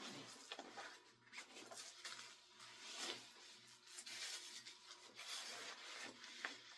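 Faint rustling and rubbing of a blood pressure cuff's fabric as it is wrapped and smoothed around an upper arm.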